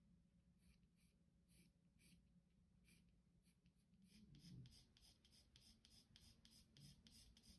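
Faint scratching of an ebony graphite pencil hatching short strokes on drawing paper, a couple of strokes a second at first, quickening to about four a second about four seconds in.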